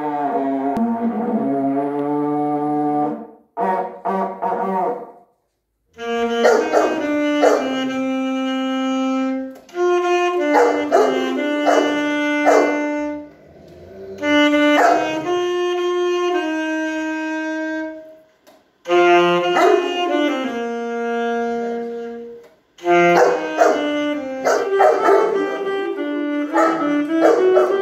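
A red plastic stadium horn blown in a few long blasts, then an alto saxophone playing a run of held notes in short phrases with brief breaks between them. Bernese Mountain dogs howl along, with their heads raised near the end.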